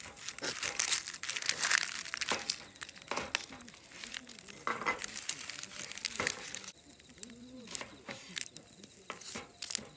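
Dry onion skin crinkling and tearing as it is peeled off by hand, in irregular crackly bursts that thin out and turn quieter after about seven seconds.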